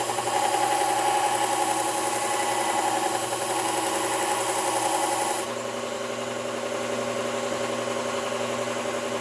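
Belt sharpener running with a steady motor hum while a chisel is ground against the abrasive belt, a gritty hiss that stops abruptly about five seconds in as the chisel is lifted off; the belt keeps running.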